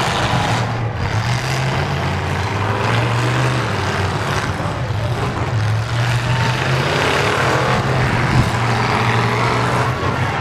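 Demolition derby trucks' engines running and revving, their pitch rising and falling, with a single sharp knock about eight seconds in.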